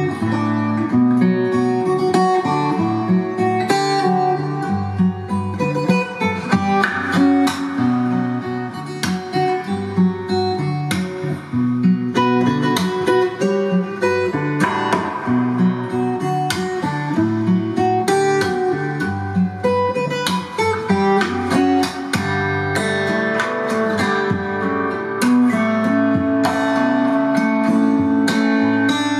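Guitar music with plucked and strummed notes over a bass line, played back through hi-fi floor-standing loudspeakers.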